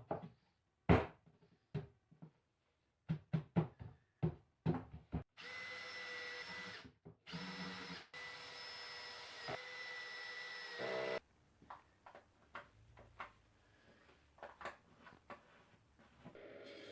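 Power drill running in two long bursts with a steady whine, a short stop between them, amid knocks and clatter of handling wood and tools before and after.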